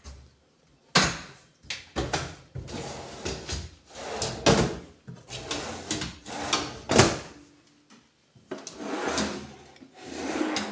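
Aluminium kitchen-cabinet drawers and a cabinet door being opened and shut: a pull-out dish-rack drawer slides on its runners, with several sharp knocks as the drawers and door close.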